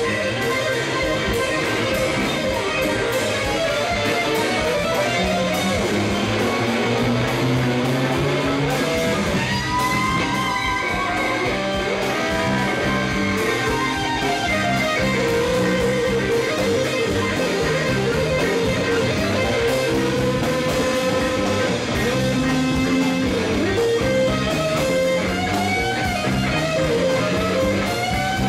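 Live rock band jamming without vocals: electric guitars over bass and drums, the lead guitar holding long notes and bending them up and down in pitch.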